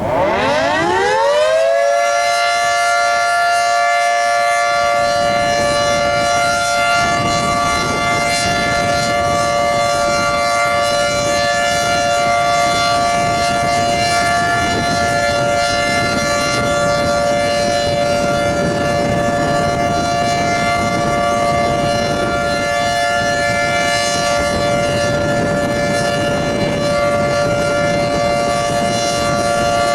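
Federal Signal 2T22 dual-tone tornado siren starting up: its pitch climbs for about two seconds, then settles into a steady, loud two-note chord with many overtones. It is sounding its steady alert for a scheduled test. Strong wind rumbles on the microphone underneath.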